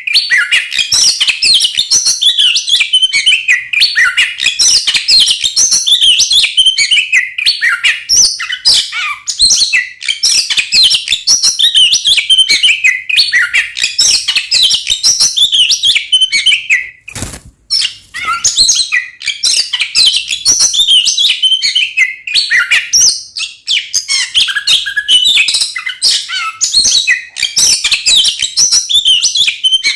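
Oriental magpie-robin (kacer) singing a loud, rapid, unbroken stream of varied chirps, whistles and trills, in the agitated fighting song that keepers use to provoke other kacer. The song breaks off briefly about 17 seconds in, with one click, then carries on.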